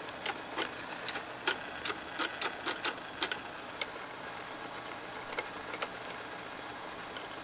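Sony TC-200 reel-to-reel tape transport running with its covers off: a steady motor and mechanism whir with irregular sharp clicks, most of them in the first few seconds.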